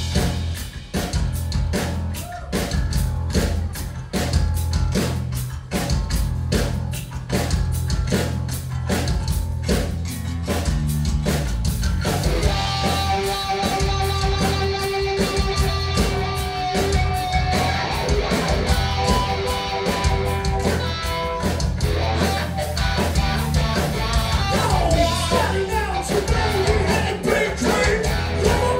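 Live rock band with electric guitar, bass and drum kit playing the opening of a song. For the first twelve seconds or so it is a run of hard, evenly spaced hits; then held notes ring out over the beat.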